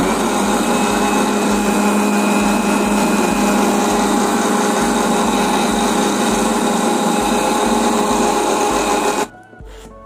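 Electric mixer-grinder running flat out, grinding soaked fennel seeds with sugar and cream into a wet paste: a loud, steady whir that cuts off suddenly near the end.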